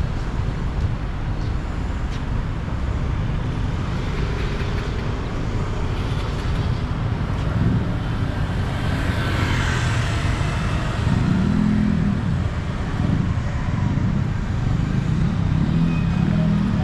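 Steady road traffic rumble, with a vehicle passing about nine to ten seconds in.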